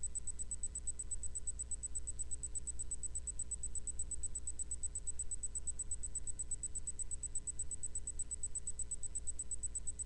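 Steady low electrical hum and faint hiss from a CB radio base station idling between transmissions, with a thin high-pitched whine over it; no one is keyed up on the channel.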